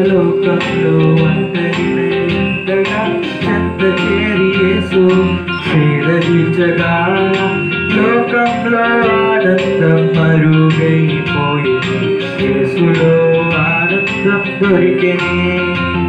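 Live Telugu Christian worship song: a Korg Pa arranger keyboard plays chords over a steady programmed drum beat, with singing on top.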